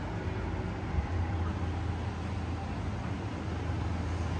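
Wind rumbling on the phone's microphone over a steady outdoor hiss, with one brief bump about a second in.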